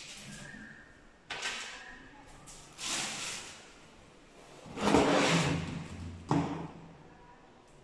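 Vacuum cleaner parts and packaging being handled: a series of separate sliding, scraping knocks, each about a second long, the loudest about five seconds in.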